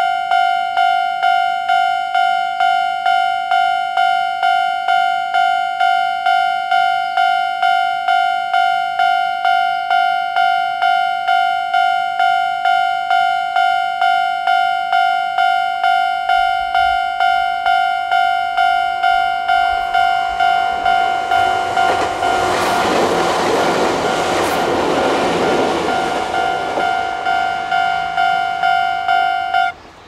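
Japanese railway level-crossing warning bell ringing in an even, repeating clang, a little over one strike a second. Over the second half a Chichibu Railway 7000 series electric train passes over the crossing, its running noise swelling and fading and loudest about three-quarters through. The bell cuts off suddenly just before the end.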